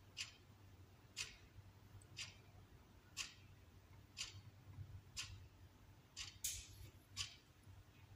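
A clock ticking faintly, once a second, over a low steady hum, with a brief rustle about six and a half seconds in.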